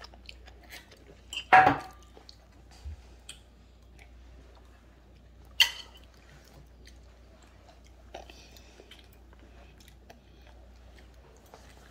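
A small child eating rice from a bowl with a metal spoon: quiet chewing and light clicks of the spoon against the bowl, with two louder short sharp sounds, about a second and a half in and again after about five and a half seconds.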